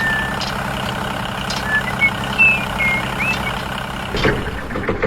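Steady idling engine drone, like a tractor running, with a few short high chirps over it.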